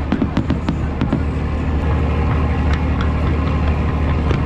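Fireworks going off: a quick run of sharp bangs and crackles in the first second, then only a few scattered cracks over a steady low rumble.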